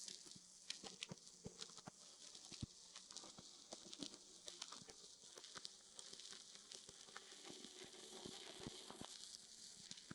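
Faint surface noise of a 1922 gramophone record with the music removed: a steady hiss dotted with irregular crackles and pops. The hiss grows a little stronger in the second half.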